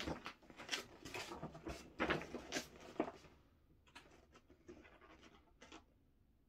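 A folded paper poster being unfolded and shaken open: papery crackling and rustling for about three seconds, then a few faint crinkles as it is held up.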